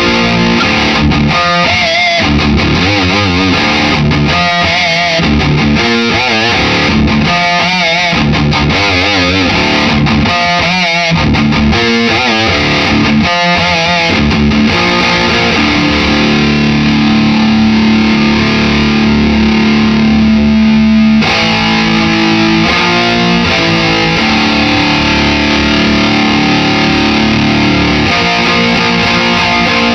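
Heavily distorted electric guitar, an Epiphone Les Paul Custom with Seymour Duncan Blackout active pickups, played loud through an amp head and speaker cabinet. Lead phrases with wide vibrato and bends come first, then long held notes and chords in the second half.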